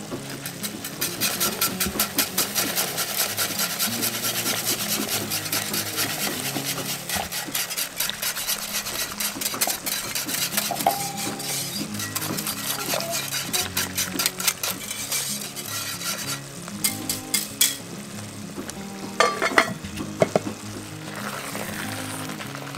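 Maize meal being stirred into water in a cast-iron pot, a whisk and then a metal spoon rapidly clicking and scraping against the pot. After about 16 s the stirring thins out to a few sharp knocks of the utensil on the pot.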